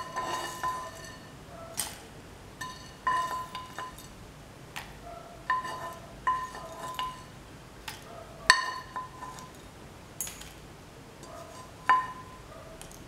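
A spoon knocking and clinking against the roasting pan and the grinder jar as roasted dry shrimps and red chillies are scooped into the grinder. About a dozen sharp, ringing clinks come at irregular intervals.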